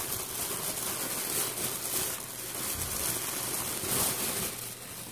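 Crumpled blue and white tissue wrapping paper crinkling and rustling as hands pull it out of a pipe box.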